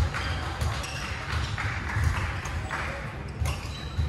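Badminton play in a large sports hall: footsteps thudding on the wooden court floor, short squeaks of court shoes, and the sharp taps of rackets striking a shuttlecock.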